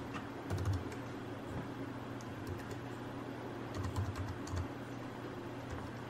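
Keys of a Cherry KC 4000 ultra-slim keyboard being pressed: faint, short clicks of its low-profile SX keys, a few at a time, bunched about half a second in and again around four seconds in.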